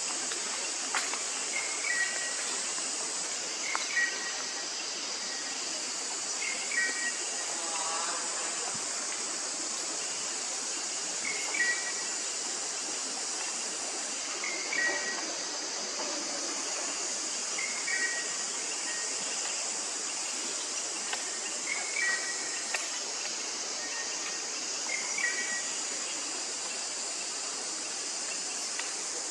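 Forest ambience: a steady high hiss with a short two-note chirping call that repeats about every three to four seconds.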